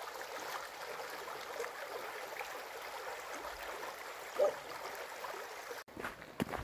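Steady rush of a flowing mountain stream, the water running over stones. The sound cuts out abruptly near the end and a few short knocks follow.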